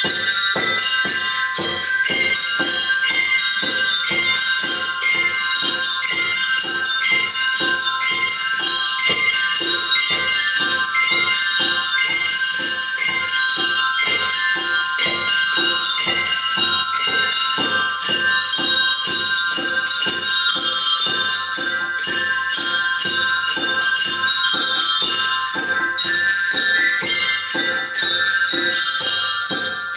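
Glockenspiels played together, a steady run of ringing metal-bar notes struck in an even rhythm.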